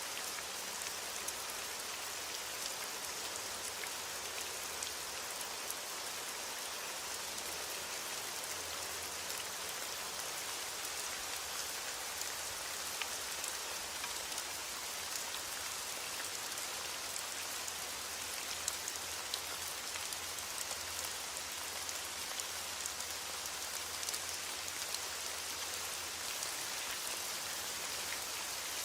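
Steady rainfall: an even hiss of rain with the small ticks of individual drops striking a surface.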